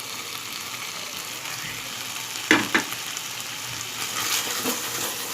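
Ginger and green chilli paste with spices sizzling in hot oil and ghee in a kadai, a steady hiss, with a spatula knocking against the pan twice about halfway through and a few lighter scrapes near the end as the masala is stirred.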